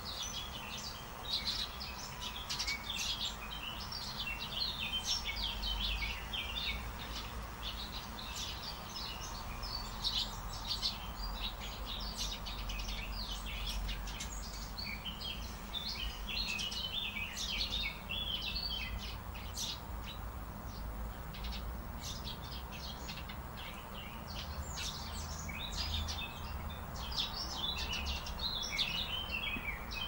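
Many small songbirds chirping and twittering continuously in quick, high-pitched notes, over a faint low rumble.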